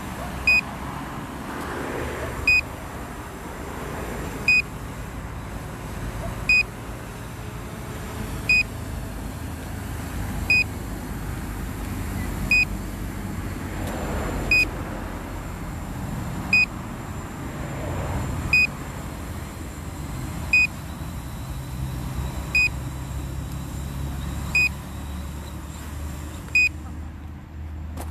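A small drone's motors and propellers running steadily, heard through its own onboard camera, with a short high-pitched beep every two seconds. Near the end the hiss thins out as it sets down on the stones.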